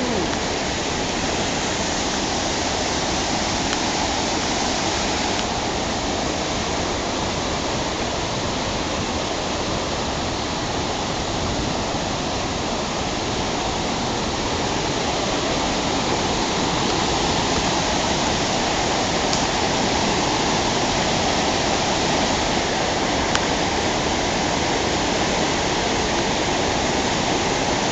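Waterfall: water falling and crashing in a steady, loud rush.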